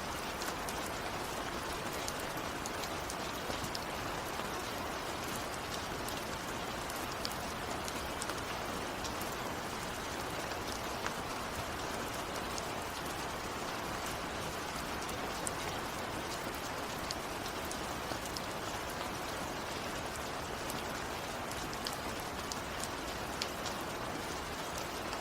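Steady rain falling, with many individual drops ticking sharply on a surface over an even hiss; no thunder.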